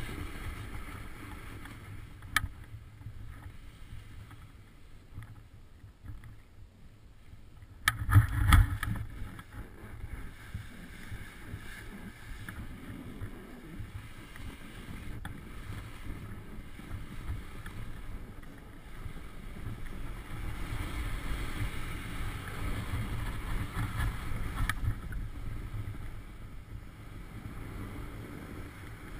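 Wind buffeting a camera microphone, a low rumble that swells and fades and grows stronger about two-thirds of the way through. A sharp knock comes about two seconds in, and a loud burst of knocking and rustling about eight seconds in.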